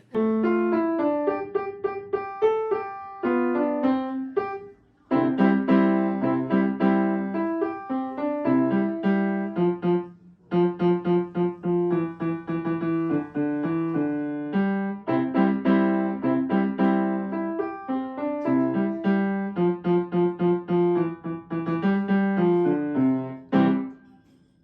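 Piano music: a tune of separate notes, pausing briefly about five and ten seconds in.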